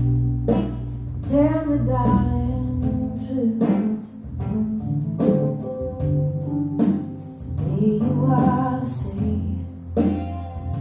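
A song with a singing voice over bass and guitar, played back through a pair of ATC stand-mounted hi-fi speakers driven by an AMR preamplifier and mono power amplifiers, heard in the listening room.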